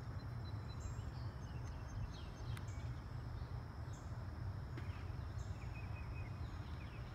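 Outdoor ambience: a steady low rumble under birds chirping, short high calls coming about every second, with a faint steady high whine.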